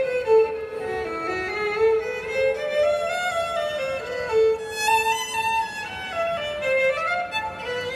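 A violin plays a melody of connected notes that climb and fall step by step.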